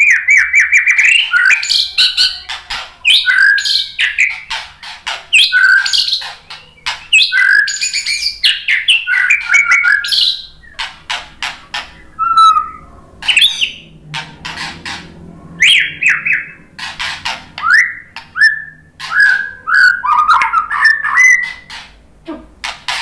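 White-rumped shama (murai batu) singing a fast, varied song: loud whistled phrases that glide up and down, mixed with harsh chattering and sharp clicking notes.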